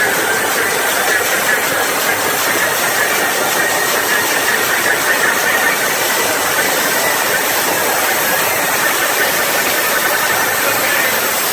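Large crowd cheering and screaming in a steady, loud roar.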